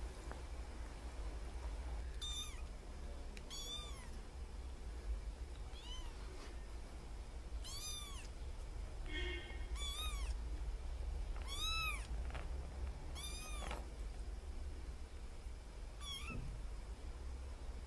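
Kittens mewing: about eight short, high-pitched mews a second or two apart, each rising and falling in pitch.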